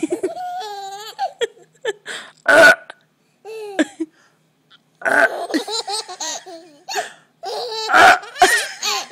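A baby laughing in repeated peals at a woman's loud fake burps. One burp comes about two and a half seconds in and another near eight seconds.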